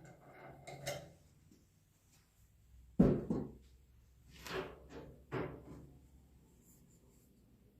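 A wrench working a wood lathe's chuck: one sharp knock about three seconds in, then three shorter clunks a second or two later.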